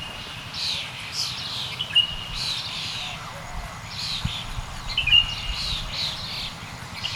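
Forest songbirds chirping in quick repeated high calls, with a short thin whistle now and then, over a low steady background rumble.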